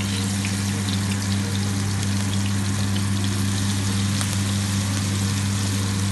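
Masala-coated salmon pieces sizzling in hot oil in a frying pan, with small crackles, over a loud, steady low hum.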